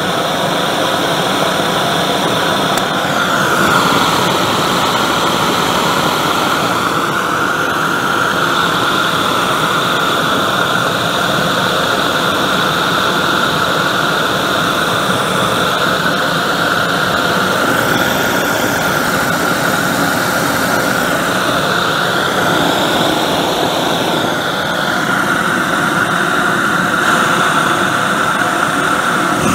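Propane forge burner running flat out, a steady rushing jet of gas and air through a high-flow waste-oil nozzle, with a whistling tone in it that shifts a little in pitch now and then.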